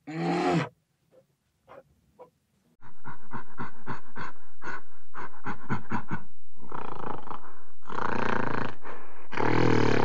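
A short pitched growl, then from about three seconds a gorilla's rapid run of short grunts, about five a second, giving way to three longer rough roars, the last still going at the end.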